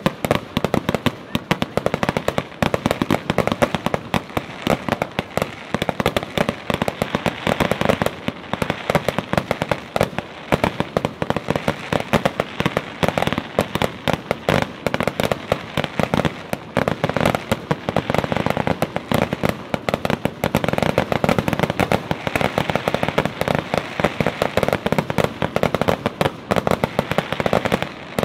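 Fireworks display firing a dense, rapid barrage: shell after shell bursting in quick succession, a nonstop string of bangs and crackles, many each second.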